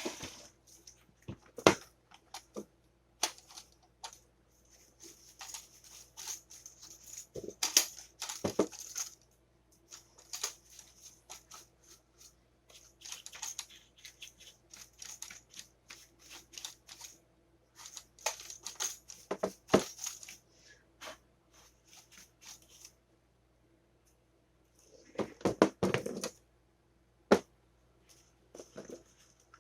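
Scratchy rubbing in stretches of a second or two, mixed with sharp clicks and knocks of small toaster parts being handled, and a short burst of clatter about 25 seconds in.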